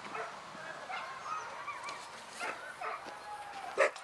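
A pack of excited sled dogs yelping, whining and barking over one another, as teams do when eager to start a race, with one loud sharp bark near the end.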